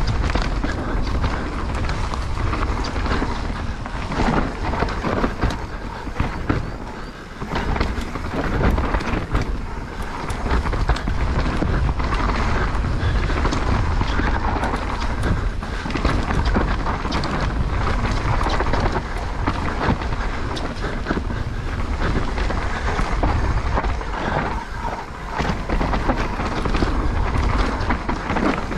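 Mountain bike running down a dirt trail: tyres rumbling over the ground, with many short clicks and rattles from the bike over bumps and wind buffeting the microphone.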